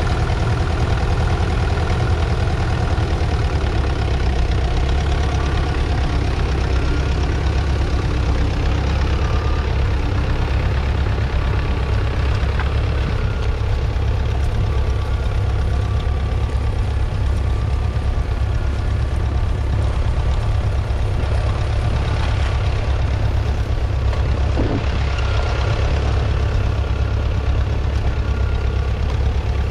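1961 International Harvester B250's 2.4-litre four-cylinder diesel engine running steadily under load while the tractor pulls a two-furrow trailed plough.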